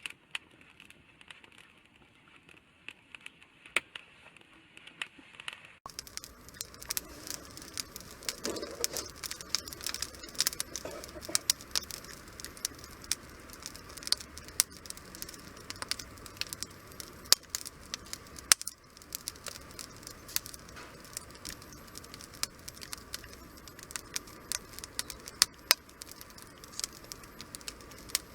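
Wood fire crackling, with frequent sharp pops and snaps from the burning firewood. About six seconds in it becomes louder, with denser pops over a steady hiss.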